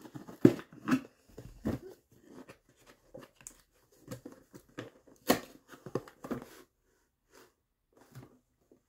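Sticky tape being cut and torn off a box with a knife: irregular scratches, clicks and tearing. The sharpest come about half a second in and about five seconds in, and they thin out after about six and a half seconds.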